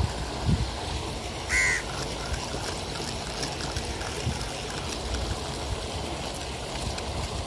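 A crow cawing once, briefly, about a second and a half in, over steady background noise.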